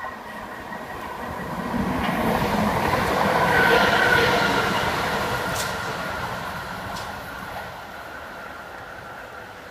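Southern electric train running through the station at speed without stopping. Its rail and wheel noise builds to loudest about four seconds in, then fades away, with two sharp clicks as it goes.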